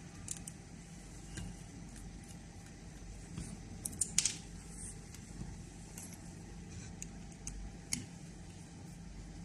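Scattered light metallic clicks and clinks of small metal parts or tools being handled, several close together about four seconds in, over a faint steady low hum.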